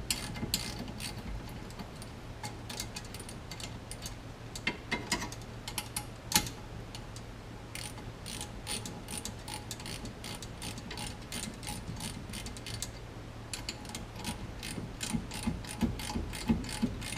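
Hand ratchet wrench clicking in quick runs with short pauses as the steering wheel bolts are turned down and seated, over a steady low hum.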